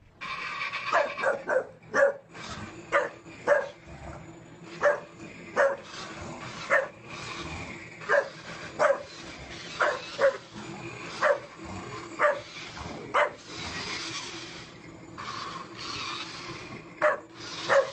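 English bulldog barking over and over at a remote-control monster truck, short sharp barks about one a second, pausing briefly near the end.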